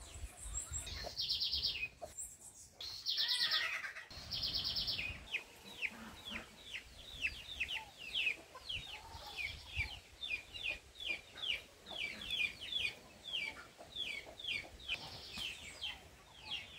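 Chickens calling: three longer buzzy high calls in the first few seconds, then a long run of short falling calls, about two or three a second.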